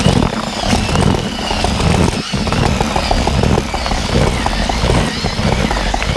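Electric whisk mixer running at higher speed, its rod whisk churning damp groundbait mixed with earth in a plastic bucket to break up the clumps into an even mix. There is a brief break about two seconds in.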